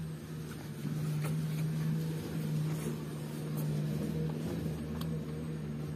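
A steady low drone, like a motor running, holds one pitch throughout. Over it come faint, scattered small clicks and chewing sounds of someone eating rice and curry by hand.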